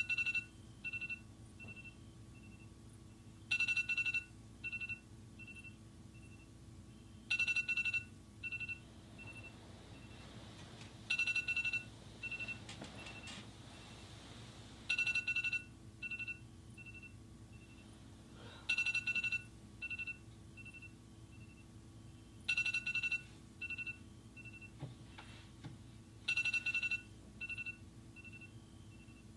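An electronic alarm ringtone going off over and over. Each round is a short, loud, high two-tone ring followed by about four quicker, fainter beeps, and the cycle repeats roughly every four seconds, eight times.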